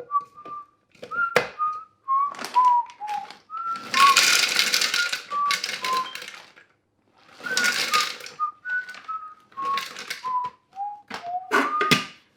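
A person whistling a slow tune in short notes that step up and down. Bursts of clicking and clattering noise come under it, heaviest about four seconds in and again around eight seconds.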